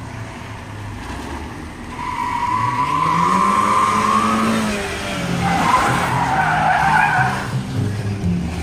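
MINI hatchbacks driven hard in tight turns: an engine revs up and the tyres squeal in long screeches, starting about two seconds in and again from about five seconds in.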